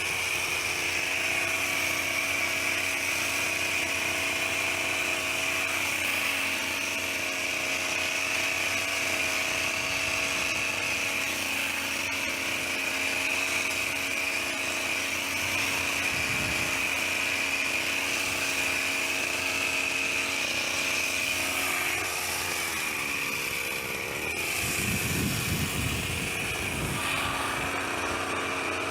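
Petrol hedge trimmer's small engine running at high speed, a steady high whine. Its pitch dips and wavers briefly about three quarters of the way through, then steadies again.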